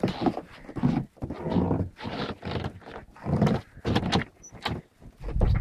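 Schapendoes puppies vocalising in a string of short, irregular bursts.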